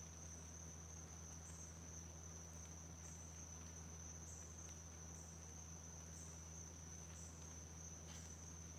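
Faint, steady high-pitched drone of an insect chorus, with a slightly higher pulse joining in about once a second, over a low steady hum.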